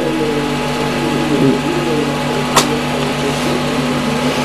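Steady background hum and hiss, with a faint murmur of voices early on and a single sharp click about two and a half seconds in.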